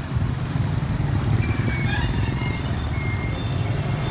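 Steady low rumble of a motor vehicle running, with a few faint, short high tones over it about halfway through.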